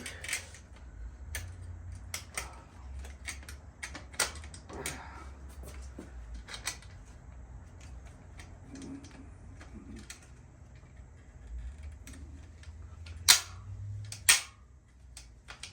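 Metal lowrider bicycle parts being handled and fitted together: scattered clicks and clinks, with two sharper knocks near the end.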